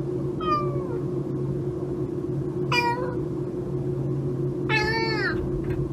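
Domestic cat meowing three times, the first and last calls falling in pitch and the last the longest, over a steady low hum.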